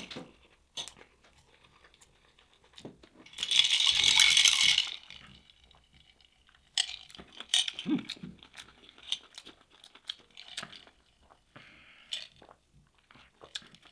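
Crunching and chewing of crispy nut-coated fried fish, with scattered sharp clicks and crackles. The loudest is a dense crackle lasting about a second and a half, a few seconds in.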